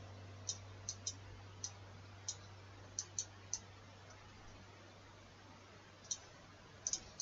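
Computer mouse clicking about a dozen times at an uneven pace, the sharp clicks of selecting and dragging, over a faint steady low hum.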